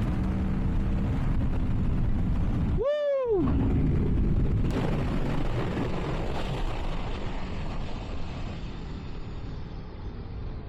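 Aprilia Tuono V4's 1077cc V4 engine running in first gear with wind and road noise. About three seconds in, a quick rev rises and falls, then mostly rushing wind and road noise, slowly fading.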